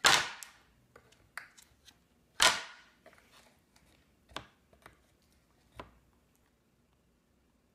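A pizza peel slapped down on a counter: two loud slaps about two and a half seconds apart, then several fainter knocks and taps.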